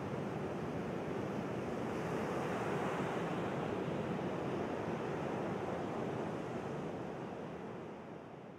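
Sea waves washing, a steady rush of surf that fades out near the end.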